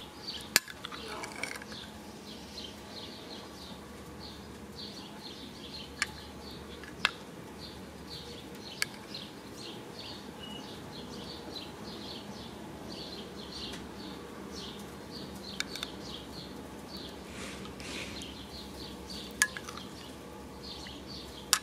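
Metal spoon stirring a butter sauce in a ceramic bowl, clinking sharply against the bowl about six times, spread out with long gaps. Faint, rapid high chirps, like small birds, run underneath.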